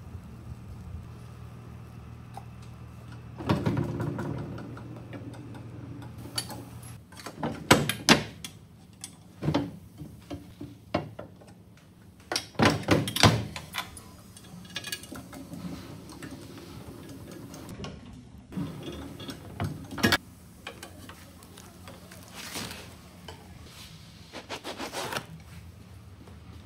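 Metal clanks and knocks from handling a giant cast-iron fish-shaped bread mold as it is closed, latched and worked, in scattered bunches with the loudest about eight and thirteen seconds in. A steady low hum runs under the first seven seconds or so.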